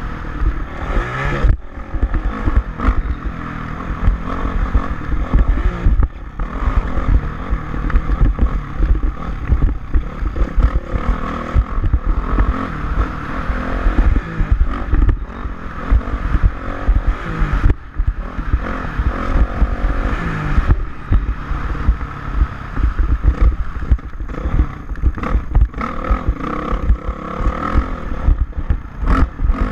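Motocross bike running on the track, engine note mixed with loud, choppy wind buffeting on the microphone.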